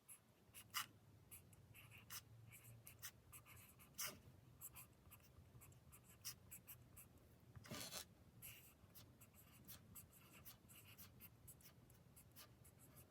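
Faint, scattered light ticks and rustles of hands handling packaging, with a brief louder rustle about eight seconds in.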